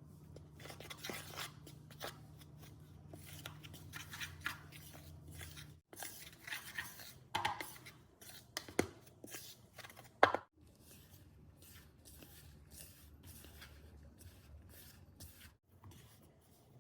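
Kitchen food-preparation sounds: hands and utensils working, with scattered taps, scrapes and rustles and one sharp clack about ten seconds in, over a low steady hum in the first few seconds. The sound breaks off abruptly a few times.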